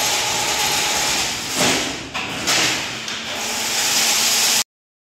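Automatic chain link fence machine running, a loud, steady, hissing mechanical noise of wire and moving parts, with a sharper scrape about one and a half seconds in. It cuts off abruptly near the end.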